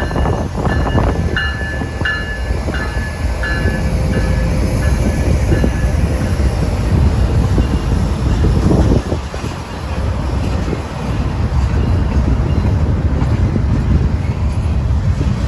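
Freight train rolling by: a steady heavy rumble of the locomotive and cars, with wheel clatter. A bell rings in a quick, even rhythm for the first five seconds or so, then stops.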